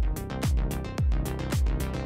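Electronic background music with a steady beat. A deep kick drum falls in pitch on each hit, a little more than every half second, with sharp bright hits between the kicks and held notes underneath.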